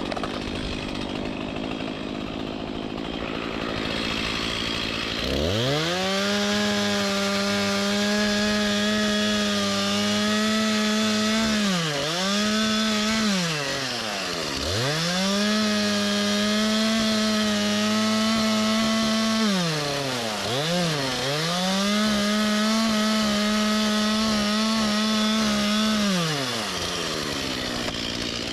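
Two-stroke chainsaw revving up to full throttle about five seconds in and held there while cutting wood, easing off and coming back up three times before dropping away near the end.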